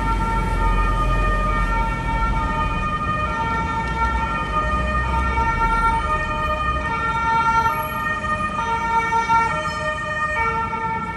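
Emergency vehicle siren sounding a two-tone call, alternating between a lower and a higher note, over a low rumble that eases off about seven seconds in.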